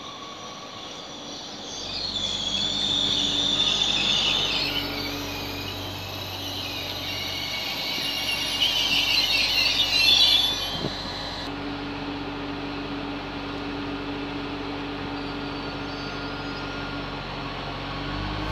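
A TER regional train passing at speed, its wheels running on the rails with a wavering high squeal that is loudest about ten seconds in. About a second and a half later the sound cuts suddenly to the steady hum of another regional train standing at a station.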